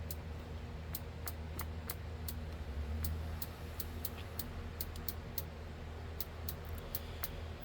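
Rotary channel selector of a 1974 President Zachary T 40-channel CB radio being turned click by click through its channels, about three detent clicks a second, over a faint steady low hum.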